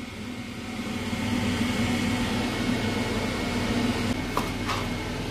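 Steady hum of a kitchen appliance motor, with a thin high tone over it and two light clicks near the end.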